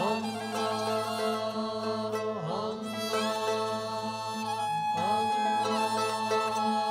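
Moroccan Sufi devotional music in the Andalusian madih tradition: a steady low drone held under a melodic line, with sliding ornaments about two and a half seconds and five seconds in.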